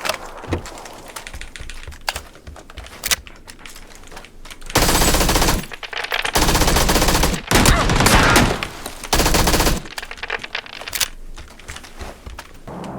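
Automatic gunfire: scattered single shots at first, then four long bursts of rapid fire around the middle, tailing off into a few more shots.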